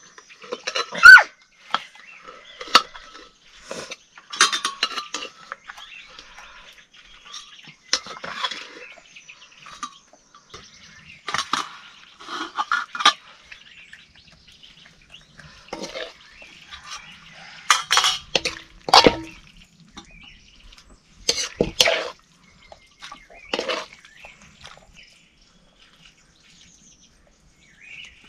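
Intermittent clinks and knocks of dishes and utensils, with the loudest clatter about a second in and more at scattered moments.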